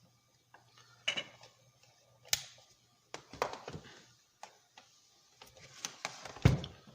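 Irregular clicks and knocks of hand tools and small parts being handled on a workbench as capacitors are taken off a power supply board, with a heavier thump near the end.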